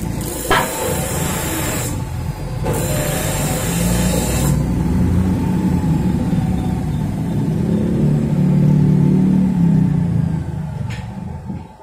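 Stick-welding arc crackling and sizzling as the electrode burns a hole through a flat steel bar, breaking off briefly about two seconds in and stopping for good at about four and a half seconds. A low engine-like drone then builds, is loudest in the second half, and fades near the end.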